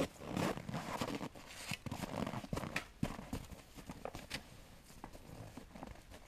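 Footsteps crunching in snow as a person walks away, the steps growing fainter and dying out after about five seconds.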